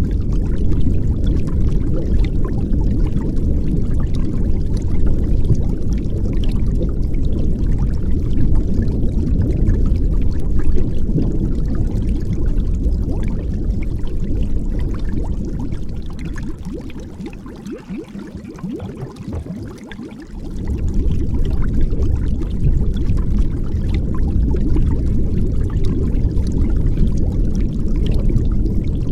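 Muffled rush of water heard through a submerged waterproof action camera, a steady low rumble with no clear highs. It dies down for a few seconds about two-thirds of the way through, then comes back.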